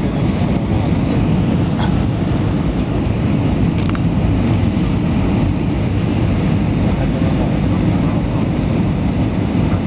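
Steady cabin noise of a jet airliner on its descent, heard inside the cabin by the window: a constant low rumble of the engines and the air rushing past.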